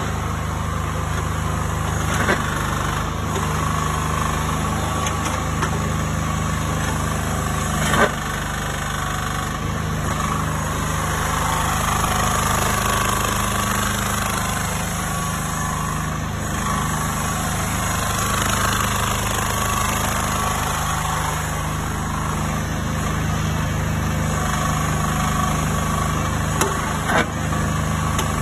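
Mini excavator engine running steadily at a constant speed, with a few brief sharp knocks.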